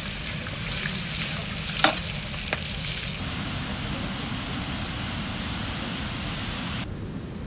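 Fish deep-frying in oil in a cast-iron pot, sizzling and crackling, with a metal utensil knocking against the pot twice around two seconds in. About three seconds in, this gives way to a steady rush of water pouring from a dam outlet.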